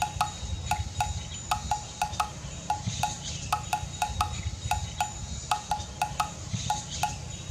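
Chimes tinkling in quick, irregular strokes, several a second, over a low rumble.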